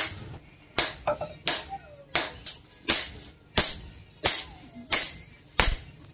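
Hand hammer striking a red-hot machete blade on an anvil: an even rhythm of sharp metallic rings, about one and a half blows a second.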